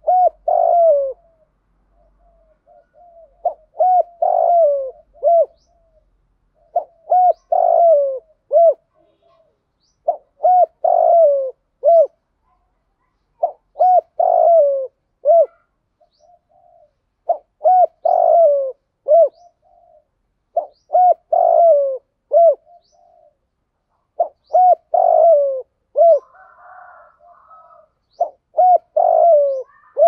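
Spotted dove singing its cooing song: a short phrase of several coo notes, each dropping in pitch, repeated about every three and a half seconds, nine times over.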